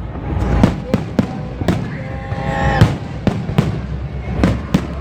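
Fireworks display: about ten sharp bangs in five seconds, at uneven intervals, over a constant noisy background.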